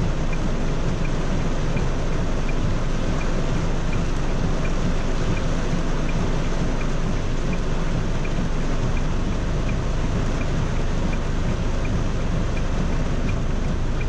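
Heavy rain on a car, heard from inside the cabin: a steady hiss over a low rumble. A faint, quick, regular ticking, about two or three a second, runs under it.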